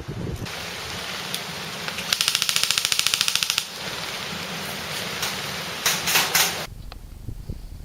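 Airsoft electric rifle firing a full-auto burst of about a second and a half: a fast, even string of clicks, roughly twenty a second, starting about two seconds in.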